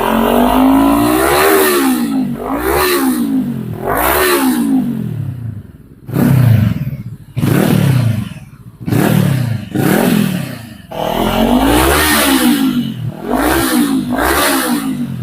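Voge 525 DSX parallel-twin motorcycle engine through an aftermarket exhaust, revved from idle in about ten repeated throttle blips, each rising and falling in pitch; the blips in the middle are short and sharp, dropping back quickly.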